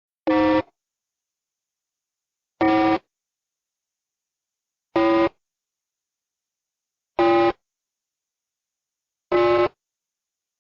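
Countdown timer beeps: five short, buzzy electronic beeps, each about a third of a second long, repeating evenly about every two seconds, with silence between them.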